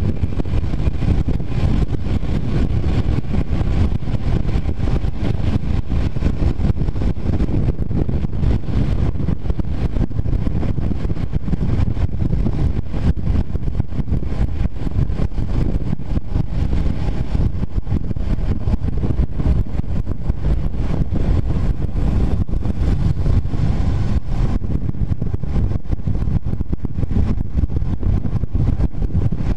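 Wind buffeting the microphone of a motorcycle riding at steady cruising speed, with the Honda CBR250R's single-cylinder engine running faintly beneath it.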